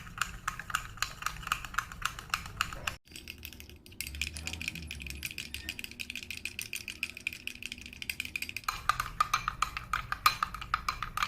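A metal spoon stirring thickening slime in a glass bowl, with quick clicks and taps against the bowl at a few per second. The stirring breaks off briefly about three seconds in, then goes on.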